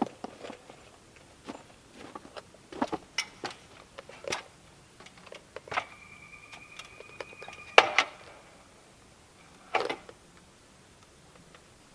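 Irregular light knocks and clicks of hand tools and boards being handled, with a faint steady tone lasting about two seconds midway.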